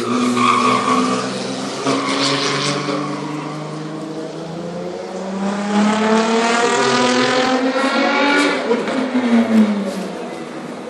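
A race car's engine driven hard, its pitch climbing steadily from about halfway through, then dropping away near the end.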